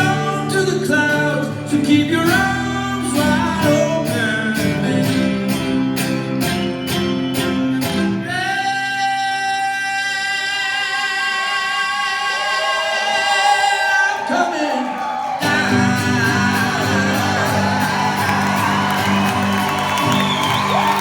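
Live rock band finishing a song: a male voice sings over strummed guitar and drums, then holds one long note with vibrato. About fifteen seconds in the playing stops short and the crowd cheers and whoops while the last chord rings on.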